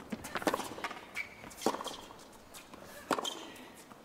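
Tennis rally on a hard court: a series of sharp hits as the ball is struck by rackets and bounces on the court.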